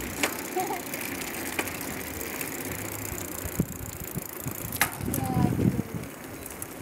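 Bicycle rolling along an asphalt road: steady tyre and riding noise with the bike's parts rattling, and a few sharp clicks and knocks.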